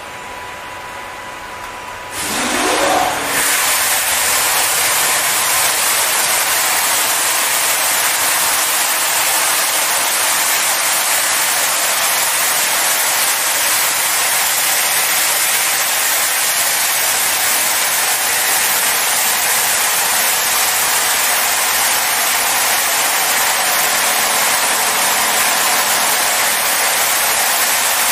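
Leisuwash S90 touchless car wash machine spraying high-pressure water over a car: a steady, loud hiss of the jets. The hiss starts about two seconds in with a brief rising whine as the spray comes on.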